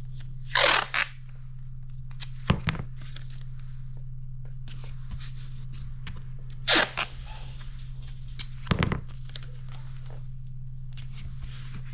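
Framer's tape pulled off its roll and torn, two short rips about half a second and seven seconds in, with a few knocks and rustles of hands pressing it onto a wooden frame, over a steady low hum.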